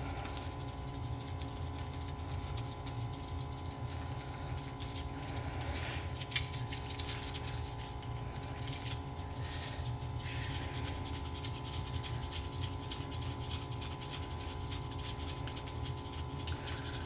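Small metallic clicks and taps as the solenoid end cover of a Denso starter is worked loose by hand in a bench vise, with one sharper click about six seconds in. Under them runs a steady background hum.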